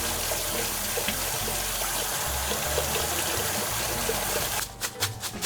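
A steady stream of running water under background music; it stops abruptly near the end, leaving rhythmic percussive music.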